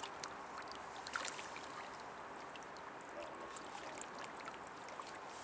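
River water flowing and lapping at the bank, a steady gentle rush with scattered small ticks and drips.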